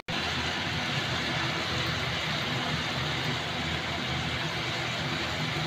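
Steady kitchen noise while noodles cook on a gas stove: a low, even hum with a hiss over it, unchanging throughout.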